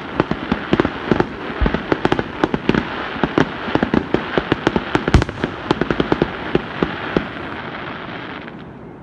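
Fireworks display with aerial shells bursting: a dense run of rapid pops and bangs, with one louder bang about five seconds in. The popping thins out and dies away near the end.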